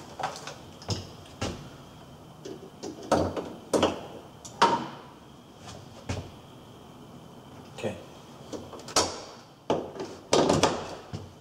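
Irregular clicks and knocks, a dozen or more, of an electrical tester's test probes and leads being handled and pressed onto plastic wall sockets during a continuity test.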